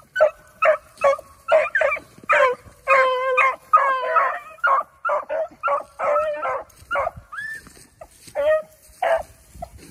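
Beagles giving tongue as they run a rabbit's scent trail, a rapid, overlapping string of short bawls and chops that thins to a few scattered calls near the end. The baying is the sign that the hounds have the rabbit's track and are driving it.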